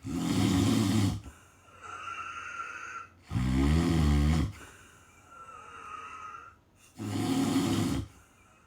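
A sleeping person snoring: three loud snores about three and a half seconds apart, each about a second long, the middle one with a clear pitch, with quieter breathing between them.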